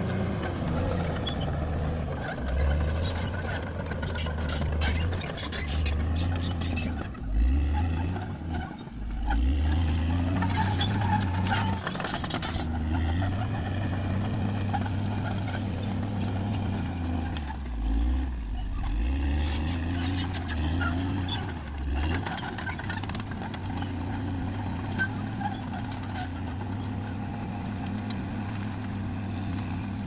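CAT D6R XL crawler bulldozer's diesel engine running under heavy, changing load as it pushes soil and brush, its pitch rising and falling repeatedly. The steel tracks clank and squeal, most sharply around 7 to 12 seconds in.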